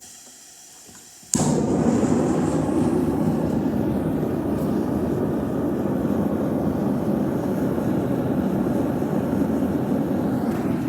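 Propane forge burner lighting suddenly about a second in, after a faint hiss, then burning loudly and steadily.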